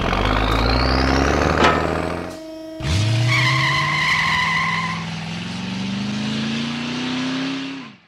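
Cartoon vehicle sound effects: a truck engine rumbling under a rising whistle, cutting off about two and a half seconds in. Then a motor starts and whines slowly upward in pitch, with a steady two-note tone for a couple of seconds, fading out at the end.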